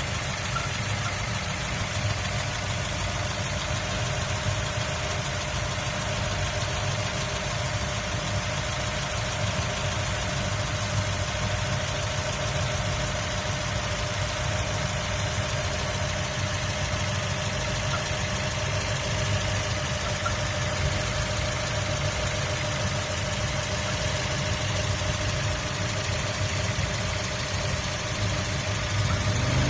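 2003 Mazda MX-5 Miata's 1.8-litre four-cylinder engine idling steadily, with a steady mid-pitched tone over the idle. The pitch starts to rise right at the end.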